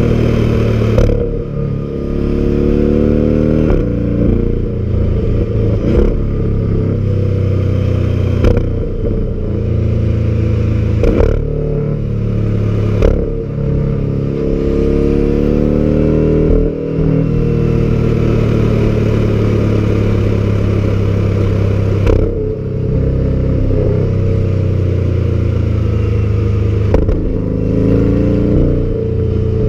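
Porsche sports car's flat engine and exhaust under hard acceleration, the revs climbing again and again, with a brief sharp break at each upshift. Later the engine holds at steadier revs for a few seconds at a time.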